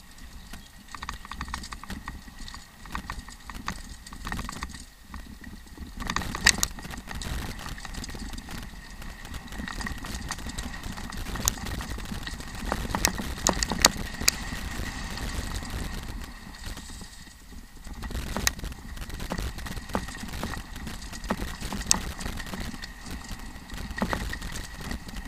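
Mountain bike rolling fast down a loose-stone trail: tyres and frame rattling and clattering over rocks in irregular knocks, with wind rumble on the microphone.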